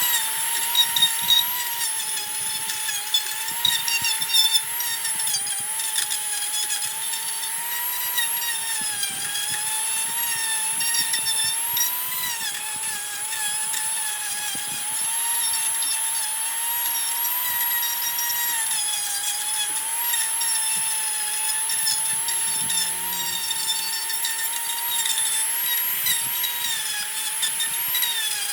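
A high-speed handheld power tool running continuously as it works wood, its high motor whine dipping in pitch and recovering again and again as the tool bites and eases off.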